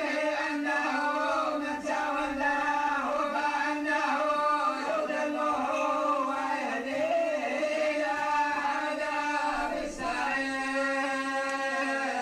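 A group of men, Quranic students (tolba), chanting the Quran together in unison in long drawn-out notes, with a brief pause for breath about ten seconds in.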